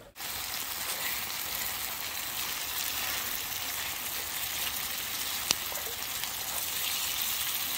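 Pan of nettles and wood ear mushrooms with garlic and onion frying over a campfire: a steady sizzle, with one sharp click about five and a half seconds in.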